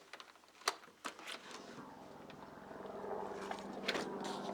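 Helicopter approaching, its rotor and engine sound growing louder from about a second and a half in, after a few sharp clicks near the start.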